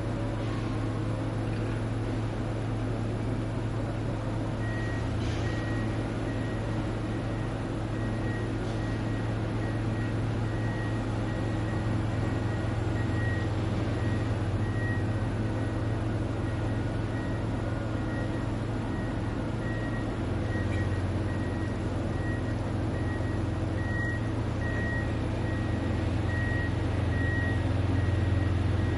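Construction-site ambience: a steady low drone of heavy machinery engines, with a reversing alarm beeping at one high pitch from about five seconds in, breaking off and resuming. The drone grows a little louder in the last few seconds.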